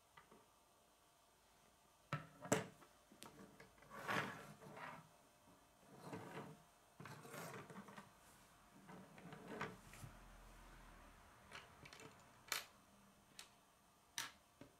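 Plastic K'nex rods and connectors being handled and set down on a wooden tabletop: soft knocking and rubbing, with a few sharp plastic clicks spread through it.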